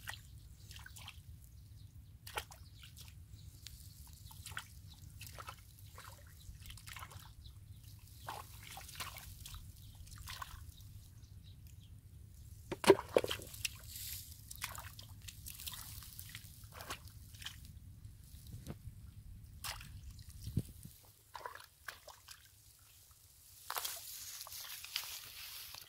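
Hands digging and scooping in wet mud and shallow muddy water: irregular squelches, drips and small splashes, with one louder splash about halfway through.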